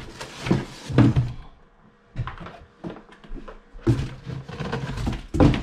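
Plastic incubator tray being lifted out of a cardboard shipping box: a series of knocks and scrapes of plastic against cardboard, with louder knocks about a second in and near the end.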